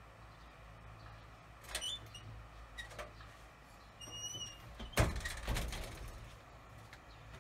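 A few knocks and a loud thump a little past the middle, with a short high chirp just before the thump and a fainter click earlier, over a low steady hum.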